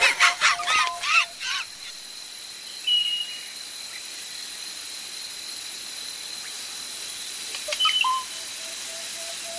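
Outdoor meadow ambience: a busy run of bird chirps and calls for the first second and a half, then a steady hiss under a thin, high, steady tone, with two brief chirps later on.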